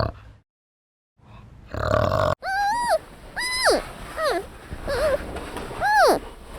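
Animal calls: a short rough grunt, then after a cut a series of about six short, high, repeated calls, each rising and then falling in pitch.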